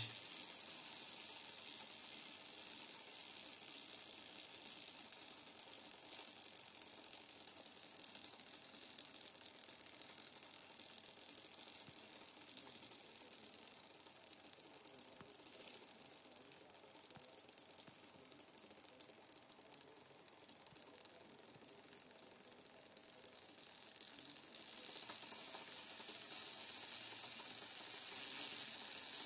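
Small servo motor and plastic gear train of a TowerPro MG996R converted to continuous rotation, running by itself: a thin high whirring hiss with a fine rattle. It dies down through the middle and picks up again about two-thirds of the way through. The servo turns although its control signal is steady, which the owner suspects comes from a drifting reference voltage once the circuit warms.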